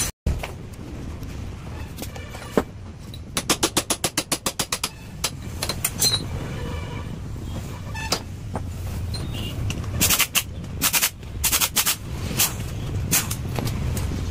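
Hand-tool work on a motorcycle's clutch: a quick run of about a dozen clicks, then scattered sharp metal knocks and taps, over a low hum.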